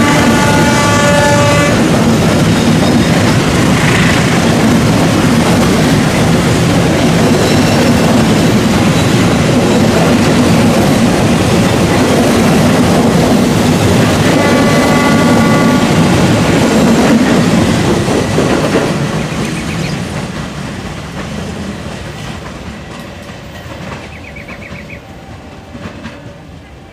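Passenger train coaches passing close by: a steady loud rumble and clatter of wheels on the rails that fades away from about two-thirds of the way through as the train moves off. A train horn sounds briefly at the start and again about halfway.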